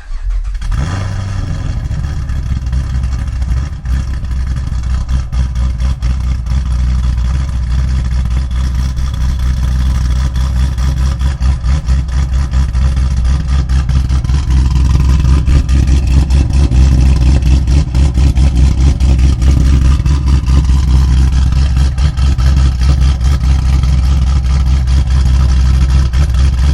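Chevy SS's 6.2-litre LS3 V8, fitted with a Livernois stage 2C camshaft and long-tube headers, running with a low, pulsing exhaust note. It grows louder about halfway through.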